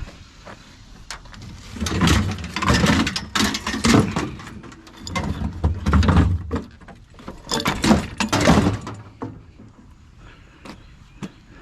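Metal parts of a discarded gas grill being handled, in several rounds of clattering and knocking with a few sharp clanks, the loudest in the middle of the stretch.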